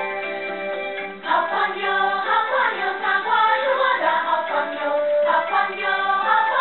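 Theme music: a held instrumental passage, then about a second in a choir of voices starts singing over the accompaniment.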